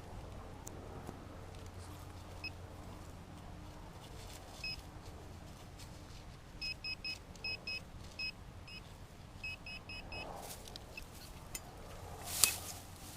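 Metal detector beeping over buried metal: short high chirps, one at a time and then in quick runs of two to four. A sharp click or knock near the end.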